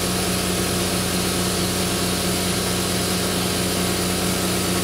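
A steady machine drone with a constant low hum and an even hiss, unchanging throughout.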